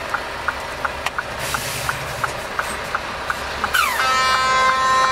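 Steady fast ticking of the turn-signal relay inside a Mercedes Actros truck cab, about two or three ticks a second. Near the end a truck air horn sounds: a falling tone that settles into a loud, steady multi-note blast lasting over a second.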